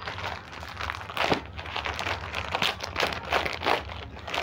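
Clear plastic garment bag crinkling and rustling as a packed pair of trousers is handled, a quick irregular run of crackles.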